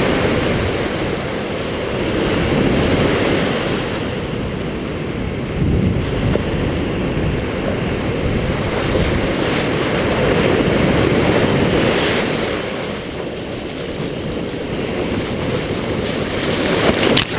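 Surf breaking and washing up a sandy beach, with wind rumbling on the microphone; the wash swells and eases a few times.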